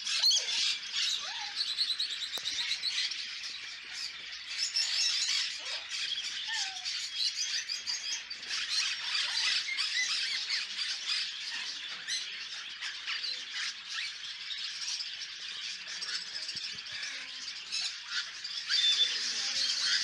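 A dense, continuous chorus of many caged birds chirping and squawking at once.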